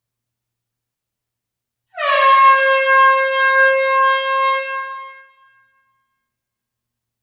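An air horn sounds one long blast of about three and a half seconds in a closed hall: its pitch dips slightly at the onset, then holds steady before fading out.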